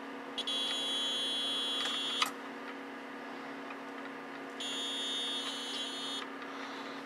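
Digital multimeter's continuity beeper sounding twice, each beep a high tone lasting about a second and a half, as the probes bridge two pins of a desoldered triac: a short between the pins, which marks the triac as blown. A steady low hum runs underneath.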